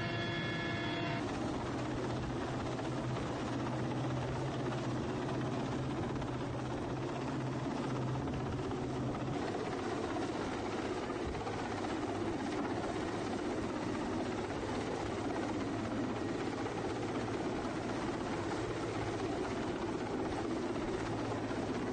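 Helicopter running steadily overhead, a continuous rotor and engine noise with a low hum.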